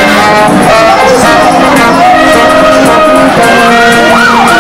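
Marching brass band playing, with trombone, euphonium and trumpets sounding several held notes at once. Near the end a sliding tone rises and falls.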